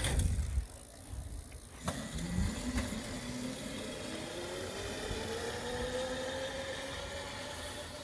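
Razor MX650 electric dirt bike being ridden: its electric motor and chain drive whine, rising steadily in pitch as the bike gathers speed, over tyre noise, on a test ride with a newly fitted BMX freewheel.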